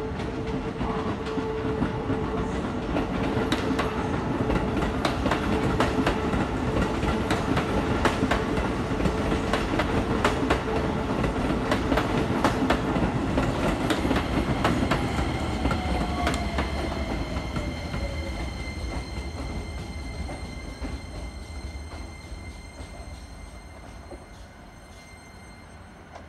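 Electric commuter train moving through the station, its wheels clacking over rail joints with a steady motor whine. About fifteen seconds in the whine drops in pitch and the sound fades steadily, as the train slows to a stop.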